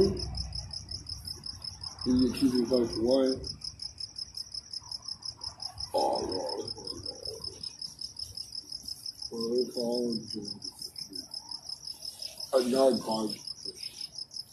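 A cricket chirping in a steady, fast pulse, about seven pulses a second. Over it come four short spells of a person's low voice.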